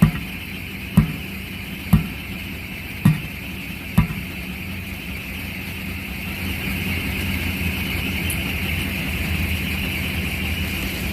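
Five sharp hammer blows, about one a second, during the mounting of a truck tire, then a steady hum from a running engine or machine.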